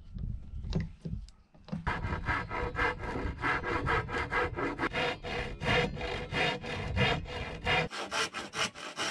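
A handsaw cutting across a wooden tongue-and-groove board in quick, even back-and-forth strokes, starting about two seconds in. A few knocks from handling the clamped board come first.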